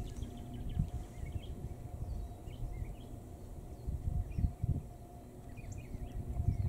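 Scattered faint bird chirps and short calls over a gusty low rumble of wind on the microphone.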